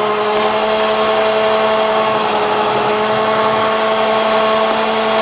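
Electric ducted fan of an RC SR-71 model jet running at a steady high speed, a steady whine over a rushing of air. Only one of the model's two fans is running; the other motor is dead.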